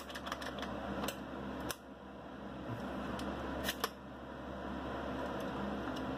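Clicks of a polymer P-Mag being seated in and released from an AR-15 lower fitted with an ambidextrous magazine release: a few faint ticks near the start and a sharp double click a little past the middle, over a steady low hum.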